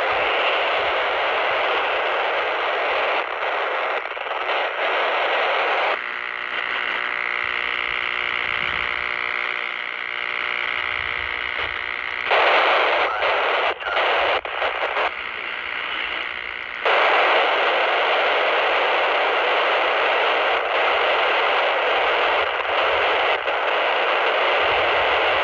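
Handheld CB radio receiver hissing with open-squelch static on the 27 MHz band as it is stepped through channels. For several seconds in the middle a steady droning tone sits under the hiss, followed by a few short breaks before the full hiss returns.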